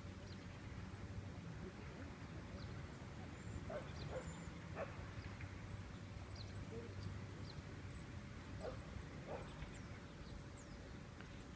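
Dogs giving a few faint, short yips and whines, scattered through the middle of the stretch, over a steady low hum.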